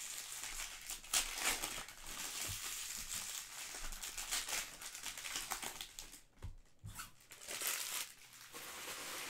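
Foil trading-card pack wrappers crinkling and tearing as packs are opened and handled, with a short lull a little past halfway.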